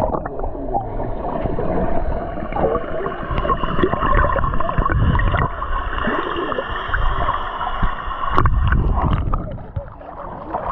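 Shallow surf water sloshing and splashing close by, with a sharp splash or knock about eight seconds in.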